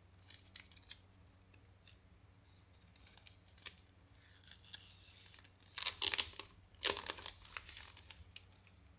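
Clear plastic protective film being peeled off a new smartphone and pulled away, crinkling and crackling, with light handling clicks at first and the loudest crinkling bursts about six and seven seconds in.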